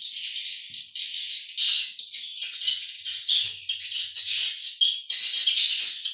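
Swiftlets' rapid, buzzing chatter of calls, in bursts of half a second to a second with short gaps.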